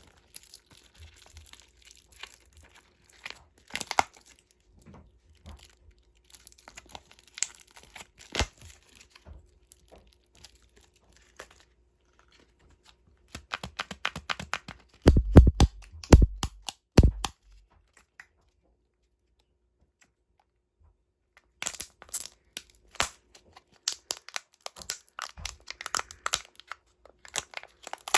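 Plastic candy wrappers being crinkled and torn open by hand, in bursts of crackling with short pauses between them. About fifteen to seventeen seconds in there is a louder run of heavier knocks, as of the packaging being handled close to the microphone.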